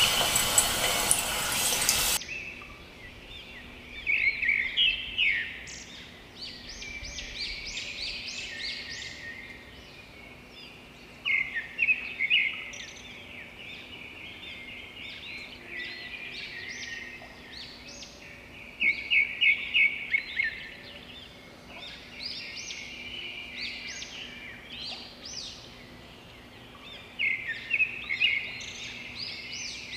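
Hot oil sizzling as a skewer deep-fries, cut off abruptly about two seconds in. Then birds chirping and trilling, in loud clusters of quick calls that come back every several seconds over a faint steady hum.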